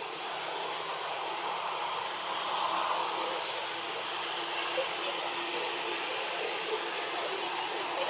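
Steady, hiss-like outdoor background noise with a thin, high, unchanging whine over it.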